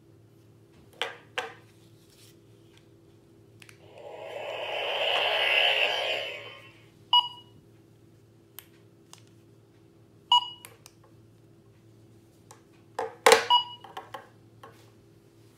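Laser X toy laser-tag blasters being switched on: plastic clicks, then an electronic whooshing sound effect that swells and fades over about three seconds, followed by three short electronic beeps a few seconds apart. A sharp plastic clack near the end is the loudest sound.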